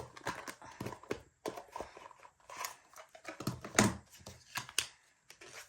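Packaging being handled by hand as a boxed lightstick is unpacked: irregular rustles, crinkles and small clicks and knocks of cardboard and plastic.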